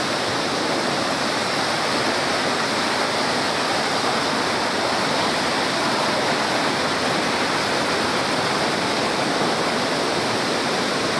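Rain-swollen, muddy stream rushing steadily over rocks at a forest waterfall.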